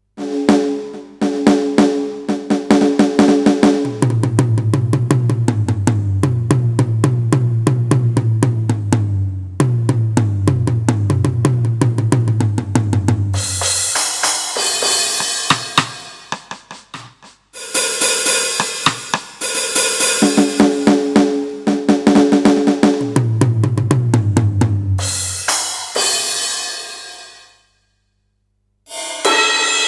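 Sampled drum-kit sounds played on an Avatar PD-705 electronic percussion pad: fast fills across low tuned drums with snare and hi-hat, and cymbal crashes ringing out in the middle. The playing stops briefly twice, about halfway through and near the end, then starts again.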